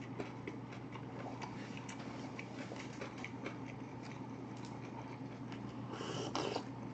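Close-miked chewing with the mouth closed: many small wet clicks and smacks. About six seconds in comes a short noisy sip from a small paper cup.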